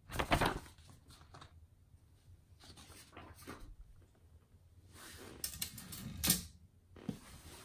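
Olivetti Lettera 31 portable typewriter's mechanism clacking in scattered, uneven strokes, with a loud clack at the start and another about six seconds in.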